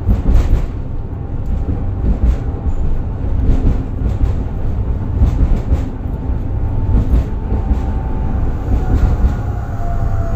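Tatra KT4Dt tram running along the track: a steady low rumble with irregular sharp knocks from the wheels, and a faint whine that shifts slightly in pitch near the end.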